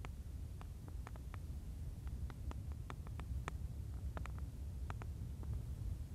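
Wood fire in a stone fire pit crackling, with irregular sharp pops and snaps over a steady low rumble.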